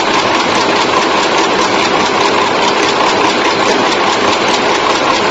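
Automatic chewing gum machine running at speed, a steady mechanical clatter with fast, regular ticking of about five or six strokes a second.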